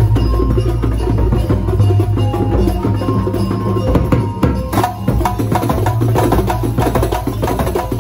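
Kuntulan percussion ensemble: hand-struck frame drums (rebana) play a fast, dense interlocking rhythm over a large bass drum, with short pitched notes above. The strokes grow sharper and busier about five seconds in.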